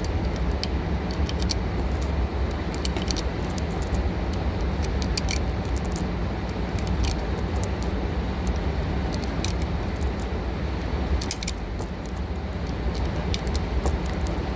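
Scattered light metallic clinks and jingles, irregular and unrhythmic, over a steady low rumble.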